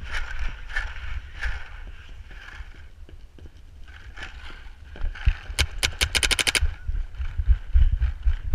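A paintball marker firing a fast string of about a dozen shots within about a second, a little past the middle. Fainter pops come about twice a second in the first couple of seconds, over a low rumble of wind and movement on the microphone.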